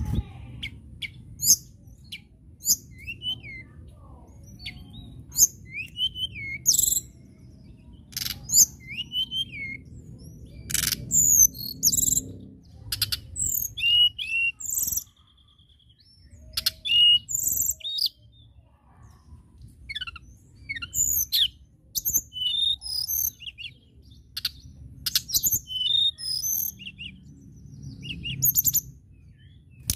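Male blue flycatcher (tledekan) singing a long run of short, high whistled notes and quick trills, with a pause of about a second just past the middle.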